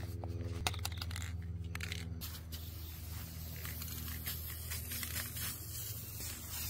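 Aerosol spray-paint can: its mixing ball clicks for the first couple of seconds, then the paint sprays out in a steady hiss from about two and a half seconds in. A steady low hum runs underneath.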